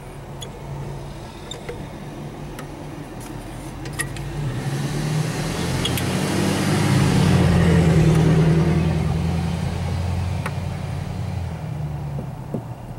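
A motor vehicle passing by: a low engine rumble with tyre noise that swells to its loudest about eight seconds in, then fades away. A few faint light clicks can be heard along the way.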